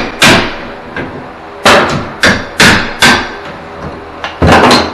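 Sharp knocks on a floor tile that has been cut along a line, struck to break the cut piece off. About eight strikes at uneven spacing, with a quick run of three near the end.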